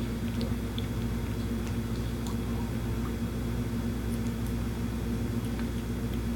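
Steady low hum of a running household appliance, with a few faint scattered clicks.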